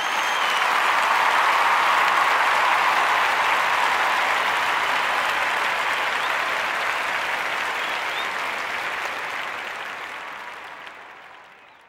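A crowd applauding: dense steady clapping that swells up at the start and fades away near the end.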